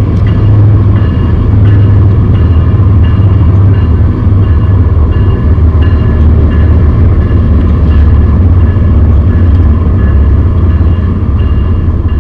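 Diesel locomotives of a Norfolk Southern freight train passing close by: a loud, steady low engine rumble with rolling noise, and short high tones repeating about twice a second. The sound is harsh because the camcorder's microphone copes badly with trains this close.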